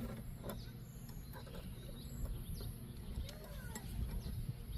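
Light, scattered clicks of steel target-rack parts and bolts being handled during assembly, with birds chirping faintly in the background.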